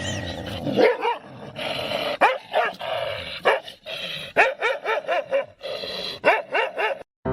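A dog barking and yipping in a quick series of short, high-pitched calls, several a second.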